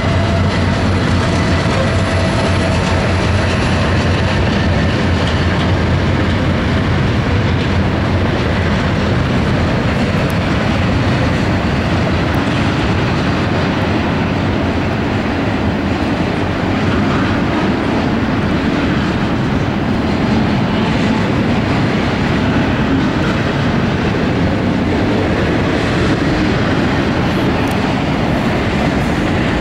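Intermodal freight train of double-stack containers and highway trailers rolling past over a steel railway overpass: the steady, loud sound of its wheels running on the rails.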